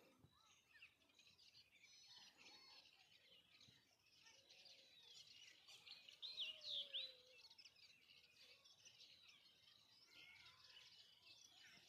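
Faint wild bird calls, many short high chirps and twitters, with a louder run of swooping calls about six to seven seconds in.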